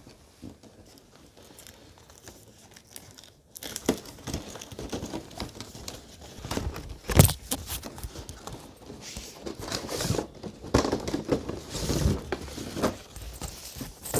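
Packaging being handled during unboxing: plastic crinkling and rustling with scattered clicks, starting a few seconds in, and a sharp knock about seven seconds in.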